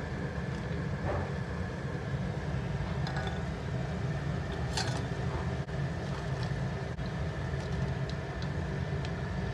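Steady low background hum with a few light metal clinks, the clearest about five seconds in, as a slotted steel spoon tips fried dumplings into a steel pot of sugar syrup.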